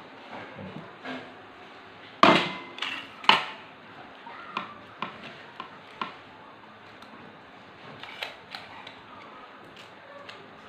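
Stainless-steel potato ricer clacking and clinking against a ceramic bowl as boiled potato is pressed and cleared from it. Two loud knocks come about a second apart, some two seconds in, followed by a run of lighter metal clicks.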